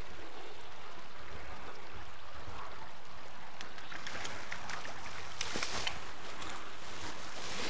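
Hooked rainbow trout splashing and thrashing at the water's surface as it is drawn towards a landing net, in a cluster of sharp splashes starting about three and a half seconds in and heaviest near the middle, over a steady hiss.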